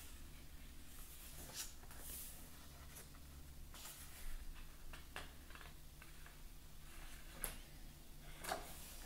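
Thick pages of a paperback colouring book being turned by hand: soft paper rustles and swishes in several short bursts, over a faint low hum.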